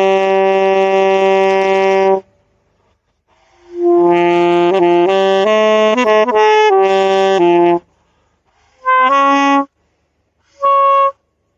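A solo wind instrument played by a learner trying for a steady tone. One long held note, a pause, then a phrase of several notes, and two short, higher notes near the end.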